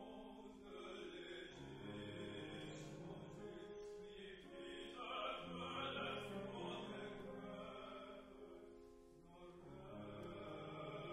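A male classical singer sings a French art song in held, operatic phrases, accompanied by a Steinway concert grand piano. The voice eases off briefly a little after nine seconds while the piano continues.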